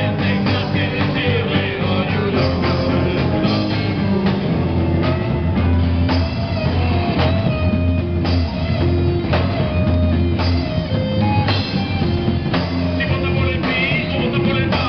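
Live rock band playing: guitars and a drum kit keeping a steady beat, with a singer's voice over the top.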